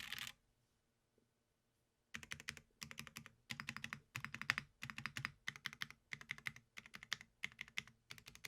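Typing on a KBD8X MKIII custom mechanical keyboard with Tecsee Ice Mint switches and PBT keycaps: rapid bursts of keystrokes. A short pause near the start, then typing resumes about two seconds in.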